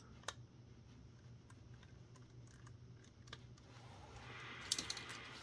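Faint, scattered small clicks and ticks of a screwdriver and small plastic parts being handled while a film camera is unscrewed. A faint scraping comes in near the end with a quick cluster of clicks.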